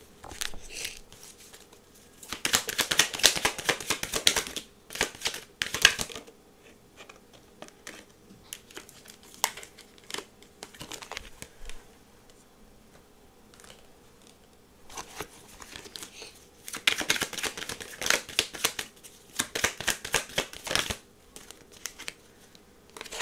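Tarot cards being shuffled and handled in bursts of rapid, crackly flicking: a couple of seconds in, and again for several seconds in the second half. Lighter card handling ticks come in between.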